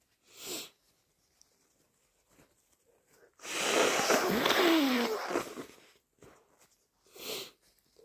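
A person blows a congested, mucus-filled nose hard for about two seconds, a wet, snotty blow with a falling pitch running through it, between two short sniffs, one about half a second in and one near the end.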